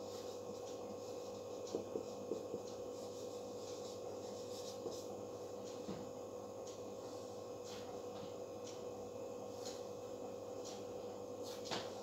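Marker pen scraping and tapping on a whiteboard as words are written, in short strokes with a few sharper taps about two seconds in and again near the end, over a steady hum.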